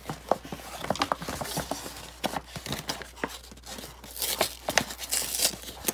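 USPS flat rate mailing envelope crinkling and crackling as hands grip and work it open, a busy run of small crackles that grows denser about two thirds of the way through.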